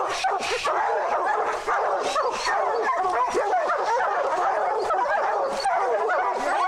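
A pack of bear hounds baying and barking together without a break, many dogs at once, the sound of hounds holding a bear up a tree.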